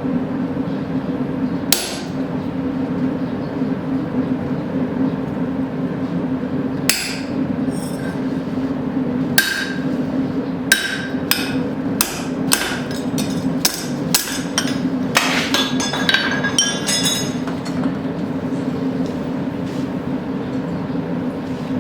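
Hand hammer striking a punch to drive a hole through a hot steel horseshoe on the anvil. A few spaced blows are followed by a quick run of strikes in the middle, some with a short metallic ring, and the strikes stop well before the end. A steady low hum runs underneath.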